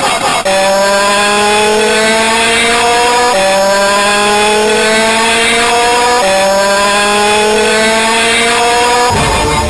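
Transforming robot car toy's electronic sound effect: a buzzy, loud tone rising in pitch through its small speaker, played three times over. Each rise lasts about three seconds, then drops back and starts again, and the last one cuts off near the end.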